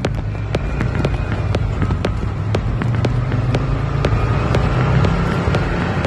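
Background music with a steady clicking beat about twice a second over a low sustained bass.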